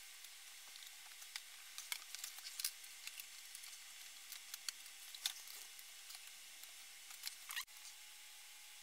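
Faint scattered clicks and light taps of wooden crib spindles and a painted wooden rail being handled and fitted together by hand, over a steady hiss. The sound breaks off abruptly about three-quarters of the way through.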